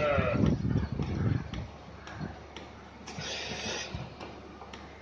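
Milking machine at work while its teat cups are fitted to a cow: low rumbling, a hiss of air about three seconds in, and light scattered clicks. A calf's bleat trails off just as it begins.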